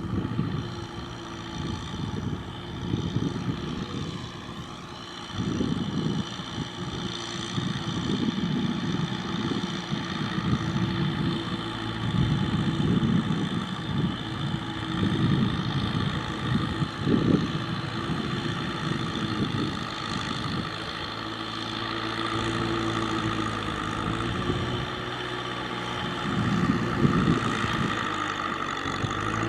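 Tractor engine running steadily under load, with the low rumble swelling and easing again and again.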